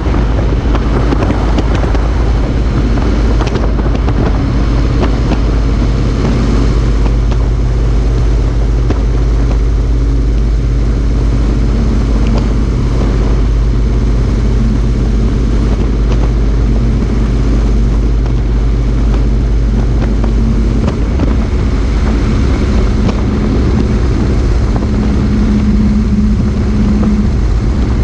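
Motorcycle riding at steady road speed: a steady engine drone with wind and road noise over a camera mounted on the bike.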